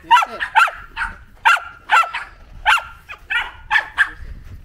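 A dog barking: about ten short, high-pitched barks in quick succession.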